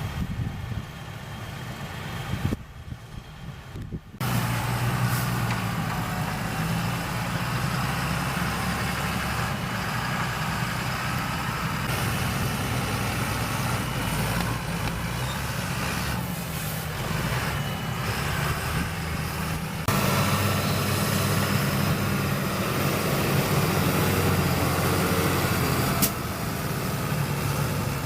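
Heavy diesel engines of maize-chopping (forage harvesting) machinery running at work. The engine sound is steady within each stretch and changes abruptly several times.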